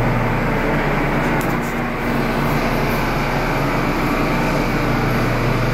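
R179 subway train standing at the platform, its on-board equipment running with a steady hum and whir.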